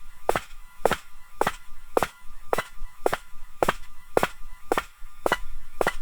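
High-heeled shoes walking on a hard marble floor: sharp heel clicks at a steady walking pace of about two steps a second, each with a short ring of the hard room.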